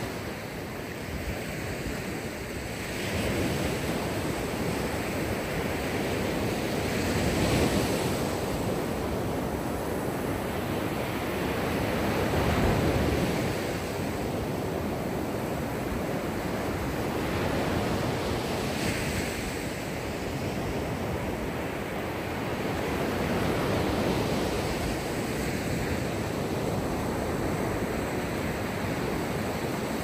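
Mediterranean Sea waves washing onto the shore: a continuous rush of surf that swells and eases every four to six seconds.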